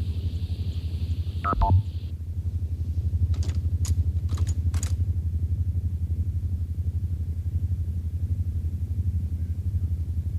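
Science-fiction time machine sound effect: a low electronic hum with a fast, even throb. About a second and a half in, a short falling whistle ends in a thump, and a few short hisses come between three and five seconds in.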